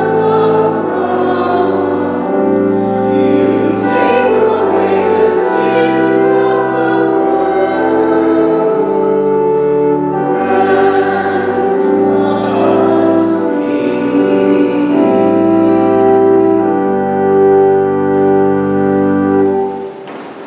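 Church organ accompanying singing voices: held chords over a bass line that steps from note to note. The music stops near the end.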